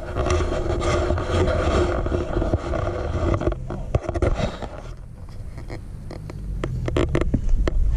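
Close scraping and rubbing from a handheld camera being turned and brushing against clothing, then sharp crunching clicks like steps on gravel and rock. Near the end a 4x4's engine can be heard coming up the trail, getting louder.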